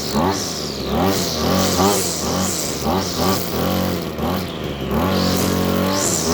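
Husqvarna 321C string trimmer's small petrol engine being revved up and down in quick pulses, about three a second, as the throttle is worked while cutting thick grass. Around the middle it is held at a steady speed for about a second before the pulsing resumes.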